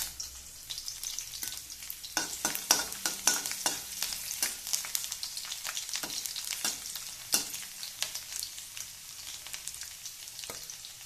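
Chopped garlic sizzling in hot oil in a kadhai, with a metal spatula scraping and clicking against the pan as it is stirred; the strokes come thickest from about two seconds in until about eight seconds in.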